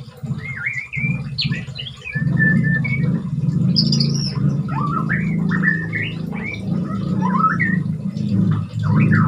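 White-rumped shama singing while in molt: a run of varied whistled phrases with quick sliding notes. A low rumble runs underneath.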